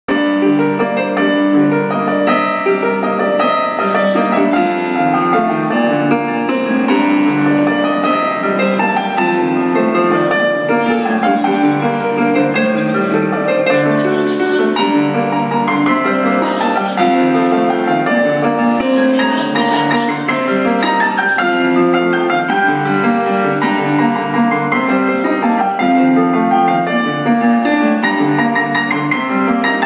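Digital piano played through a small amplifier speaker: a continuous piece with a moving bass line under a busy right-hand melody, notes following each other without a break.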